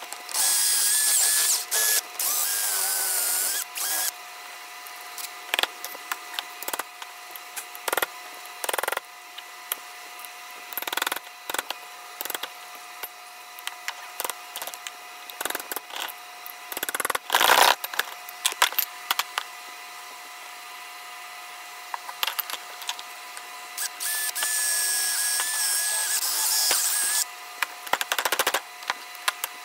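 A power drill runs in two stretches, about a second in for three seconds and again near the end, its whine wavering slightly in pitch as it works into the old handle wood in a double-bit axe head's eye. In between come many scattered knocks and taps of hand tools on the steel axe head and wood, with a loud cluster about halfway through.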